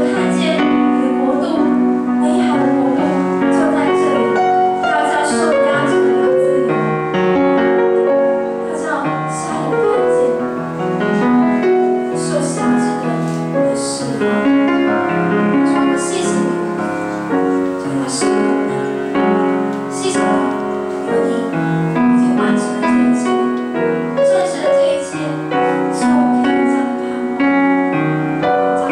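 Live music with piano, a continuous stretch of notes and chords with light percussive accents.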